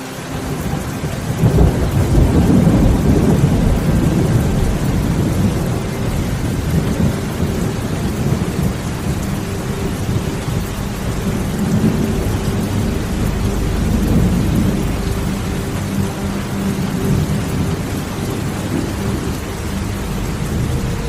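Heavy rain falling steadily, with a deep rumble of thunder that swells about a second in and slowly eases off.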